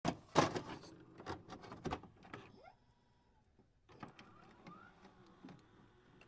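Irregular clicks and knocks with a few short rising squeaks, pausing for about a second midway.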